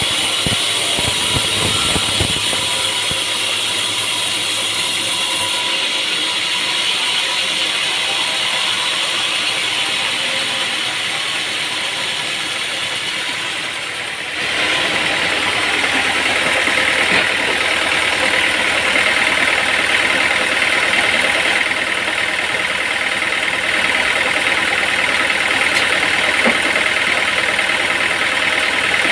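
Sawmill machinery running steadily, its engine-driven noise continuous. About halfway through the sound changes abruptly and becomes louder and brighter.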